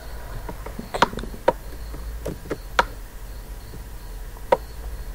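About half a dozen sharp, irregular clicks from a computer mouse, over a steady low electrical hum.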